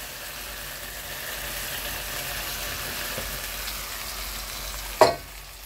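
Chopped onion, tomato and vegetables sizzling steadily in oil in a stainless steel wok over a gas flame. A single sharp knock sounds about five seconds in.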